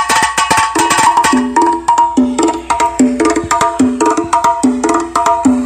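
Music with fast percussion played loud through a car sound system of horn drivers and tweeters. A quick run of clicking beats gives way about a second in to a short melodic figure that repeats over the beat.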